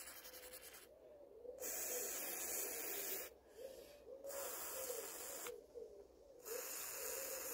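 WD-40 aerosol can spraying in four hissing bursts with short pauses between, putting oil down the valve springs of an old OHV twin engine.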